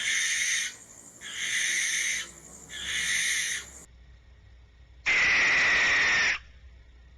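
Barn owl territorial screams: three harsh, rasping screeches under a second each, then one longer, louder screech about five seconds in. This is the call used to defend territory or warn off intruders.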